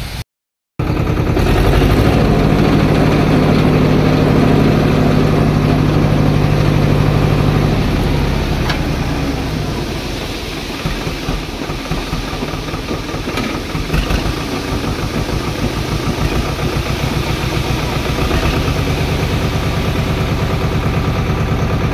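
Swaraj 724 XM Orchard tractor's two-cylinder diesel engine running steadily while it powers the hydraulic tipping trolley. It is louder for the first several seconds, then settles lower and runs on evenly.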